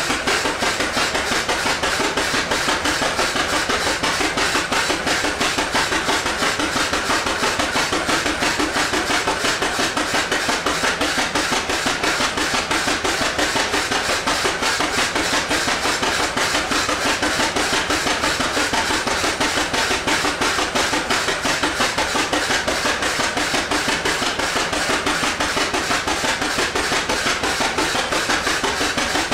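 1917 Avery tractor engine running hard under load on a flat belt: a steady, rapid string of sharp exhaust beats, several a second.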